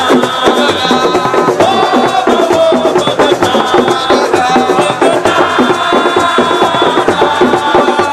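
Loud music with fast, dense drumming and a held melody line over it.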